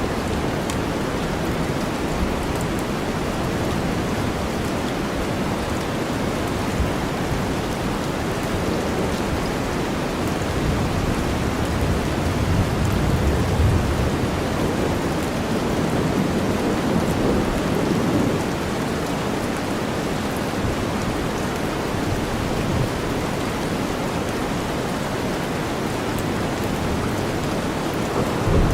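Steady rain layered over deep white noise, with low thunder rumbles swelling about twelve seconds in and again around sixteen to eighteen seconds.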